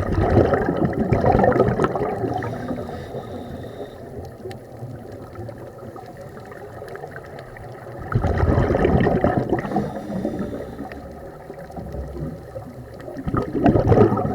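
Scuba regulator exhaust bubbles heard underwater: a diver's exhalations come as three bubbling, crackling bursts, near the start, about eight seconds in and near the end, with quieter water noise between.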